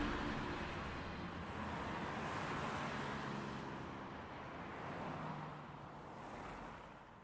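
Faint, distant road-traffic noise, an even hiss with a low rumble under it, that fades out near the end.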